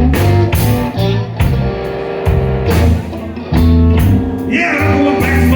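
Live slow blues band playing an instrumental stretch: Fender Stratocaster electric guitar lead over bass guitar and a drum kit keeping a steady beat.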